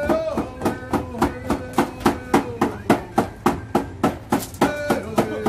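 Native American hand drum struck in a steady beat of about four strokes a second, with a man singing a chant in long held notes over it.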